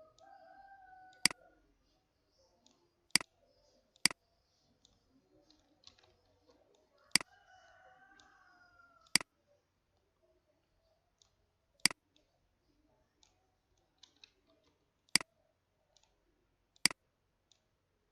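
Computer mouse button clicking: about eight single sharp clicks at irregular gaps of one to three seconds. A faint wavering pitched sound is heard twice in the background, near the start and around the middle.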